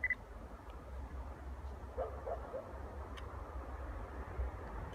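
A dog barks three times in quick succession about two seconds in, over a steady low rumble. A short high chirp is heard right at the start.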